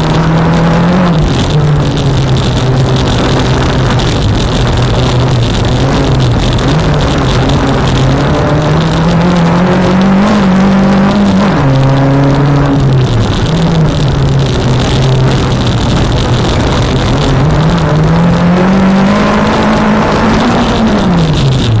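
Renault Clio 1.8 16v four-cylinder rally engine heard from inside the cabin at hard throttle, its pitch climbing steadily as the car accelerates and dropping sharply about a second in, around twelve seconds in and near the end as the driver lifts or changes gear. A steady rush of tyre noise on the dirt runs under it.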